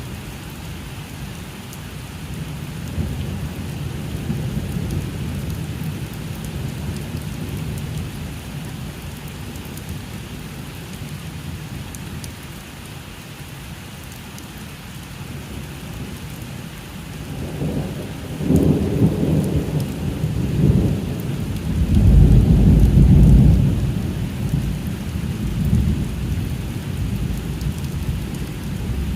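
Thunder rumbling over steady rain. A low rumble in the first few seconds is followed, past the middle, by two louder rolls; the second is the loudest and lasts a couple of seconds.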